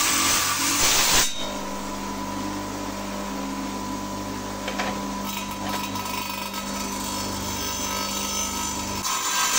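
Stone-cutting saw at work. For about the first second there is a loud grinding hiss of the blade cutting stone. The saw then runs with a steadier, quieter hum, and the loud cutting noise comes back near the end.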